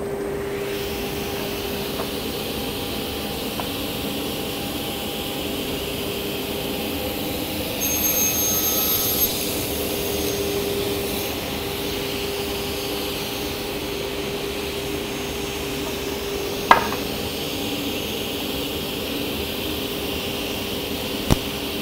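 Sliding table saw running with a steady hum. About eight seconds in, the blade cuts through a wooden board, briefly louder with a high whine. Two sharp knocks follow later on.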